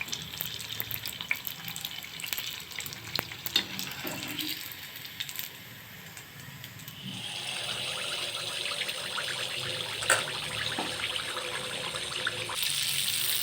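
Sweet appam batter frying in hot oil in a kadai: a crackling sizzle with scattered ticks, turning into a louder, steady sizzle about seven seconds in.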